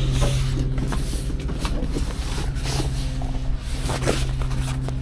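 A vehicle engine idling steadily, with a few light knocks and clicks on top.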